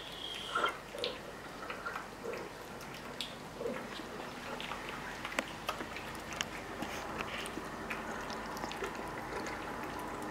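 Cat eating from a steel bowl: a scatter of small wet clicks and smacks from chewing and licking, with light taps on the metal.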